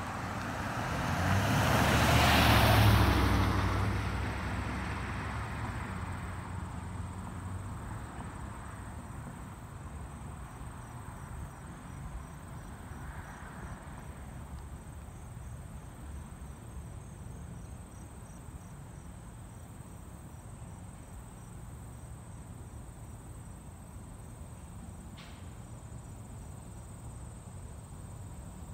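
A pickup truck drives past close by, swelling to a peak about two to three seconds in and fading away over the next few seconds. Insects chirp steadily and high-pitched in the background throughout.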